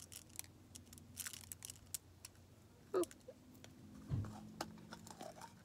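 Faint, scattered light ticks and clicks of chocolate sprinkles being pinched from a small plastic cup and dropped onto a ball of slime, with soft hand-handling noises. A low thump sounds just after four seconds in.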